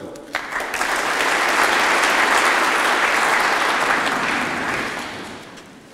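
Audience applauding a guest as he is introduced: the clapping starts about half a second in, builds to a full round, then dies away near the end.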